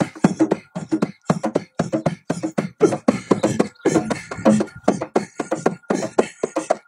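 Hand frame drum played with rapid strokes, about four to five beats a second in an uneven, driving rhythm.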